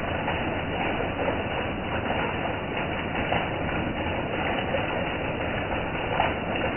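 Heavy rain falling steadily, with water pouring from the end of a roof gutter and splashing into a plastic drum full of water.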